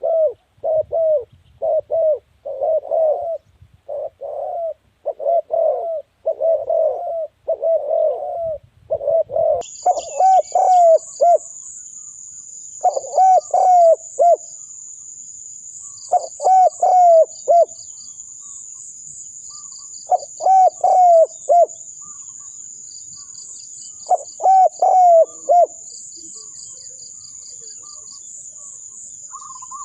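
Spotted doves cooing: first a fast, nearly unbroken run of low coos, then, from about ten seconds in, separate phrases of three or four coo notes every few seconds. A steady high-pitched buzz starts with the change and runs under the later phrases.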